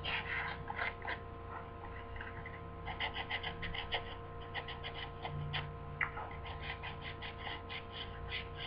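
Sandpaper (180 grit) rubbed by hand back and forth over a sneaker's rubber sole, short scratchy strokes that come sparsely at first and then quickly and evenly from about three seconds in, sanding off the yellowed surface layer.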